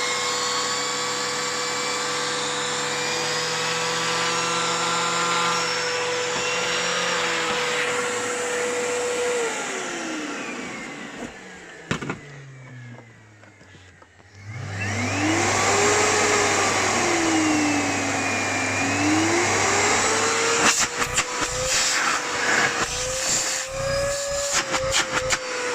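Miele Complete C3 vacuum cleaner motor running steadily, then winding down and stopping about ten seconds in. After a click and a short lull it starts up again, its pitch rising and then swinging down and up, with a series of knocks and clatters near the end.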